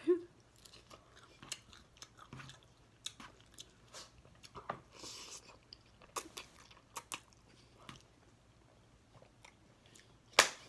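Close-miked chewing of salad and creamy alfredo pasta: wet mouth smacks and light crunches in sparse, short clicks, with one sharp click near the end.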